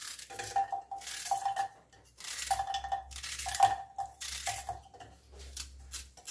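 Crinkling and rustling in four or five bursts of about a second each, with a faint squeak inside them, from onions being handled and their dry skins peeled.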